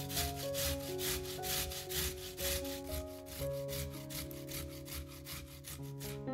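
Raw potato rubbed down a stainless steel cone grater in steady rasping strokes, about two a second, the strokes growing softer toward the end. Soft background music runs underneath.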